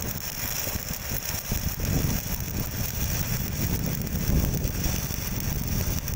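Stick (shielded metal arc) welding arc: a steady, dense crackle as the coated electrode burns and lays a bead along the steel joint.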